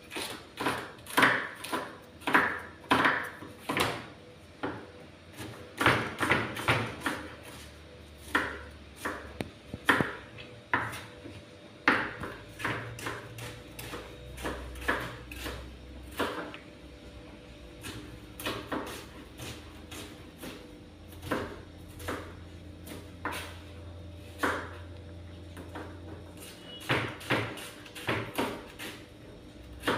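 Knife chopping onions on a plastic cutting board: irregular knocks of the blade striking the board, often in quick runs of several strokes.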